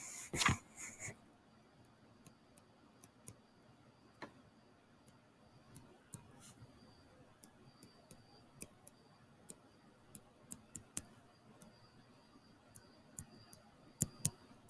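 Quiet room with scattered sharp clicks and taps, one or two a second and irregular, getting denser and louder toward the end, from handwriting figures onto the screen with a pen tool.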